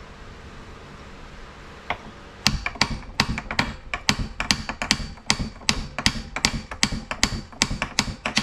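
Hammer blows on a stuck pulley adapter on a Tecumseh engine's crankshaft, knocking it loose. A single strike comes about two seconds in, then quick, steady blows about three a second, each with a short metallic ring.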